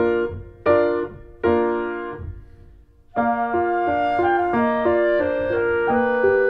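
Solo piano music: a few separate chords struck and left to ring and fade, dying almost away about two to three seconds in, then a steady, flowing figure of repeated notes over a held low note.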